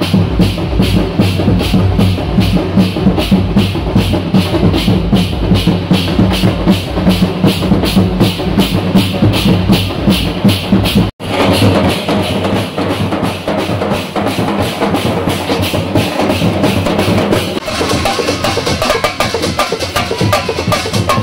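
Loud drum-driven music with a fast, steady beat of about four strokes a second. It drops out for an instant about eleven seconds in, then comes back with a busier, less regular rhythm.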